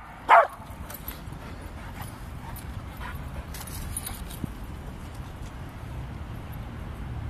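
A dog gives one short, loud bark about half a second in, then only a steady low background rumble with a few faint high clicks.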